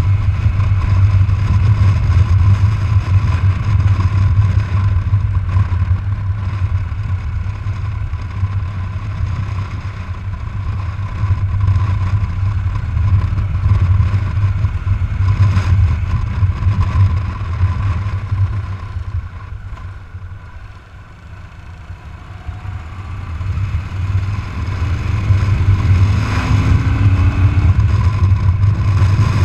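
Harley-Davidson FLHT's V-twin engine running under way with road rumble. It quietens about two-thirds of the way through, then picks up again, rising in pitch as the bike accelerates near the end.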